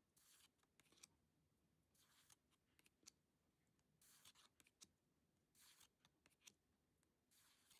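Faint swishes of Pokémon trading cards sliding against each other as the front card is pulled off a hand-held stack, five times about every one and a half to two seconds, with small taps of card edges in between.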